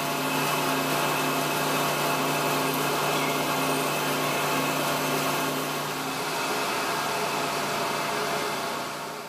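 A drilling machine running steadily as its bit cuts into a metal block held in a vise: a steady motor hum that fades near the end.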